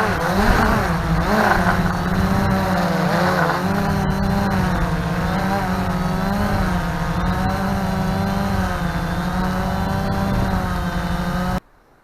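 Multirotor drone's motors and propellers whining in flight, the pitch wavering up and down as the motors adjust. The sound cuts off suddenly near the end.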